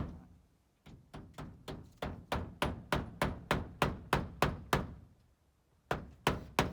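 A hammer striking repeatedly in a steady rhythm of about three blows a second, then a short pause and a few more quick blows near the end.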